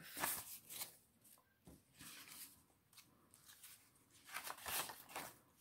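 Paper banknotes rustling and flicking as they are counted and sorted by hand, in several short, soft bursts.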